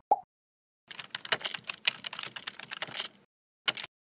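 Computer keyboard typing: a quick run of key clicks for about two seconds, then a single click near the end. Two short pitched blips sound at the very start.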